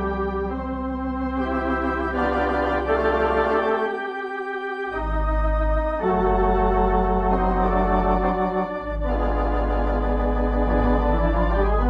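Organ music: sustained chords with a wavering vibrato over a deep pedal bass. The bass drops out for about a second, then comes back.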